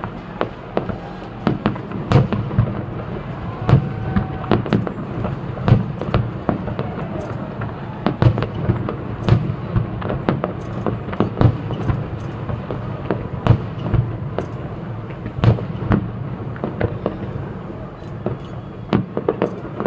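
Aerial fireworks display: many sharp bangs at irregular intervals, several a second at times, over a steady crackling rumble of bursting shells.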